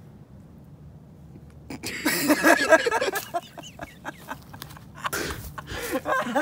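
A man bursting out laughing about two seconds in, in loud breathy fits, with a second burst of laughter near the end.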